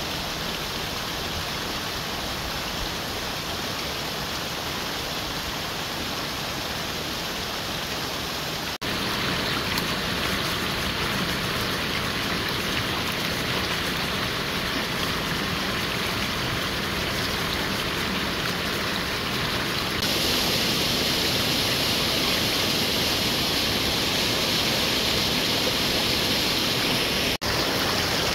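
Steady rush of a rocky mountain stream and small waterfall, running water over stones. It gets louder and brighter at cuts about nine and twenty seconds in, with a brief dropout near the end.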